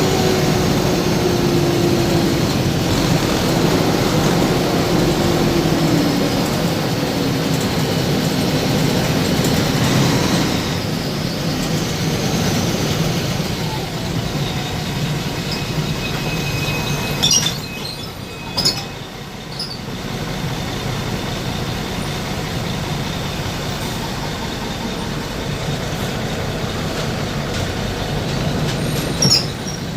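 Steady, loud rumble of a moving vehicle, with slowly falling tones in the first seconds and a few sharp clicks past the middle and again near the end.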